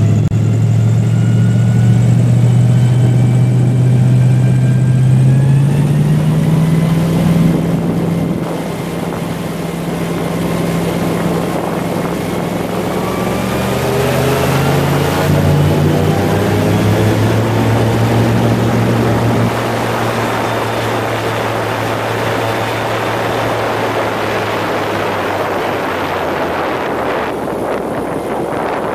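Airboat's engine and large air propeller running under way. The pitch rises and falls several times as the throttle changes, and the level eases off about eight seconds in.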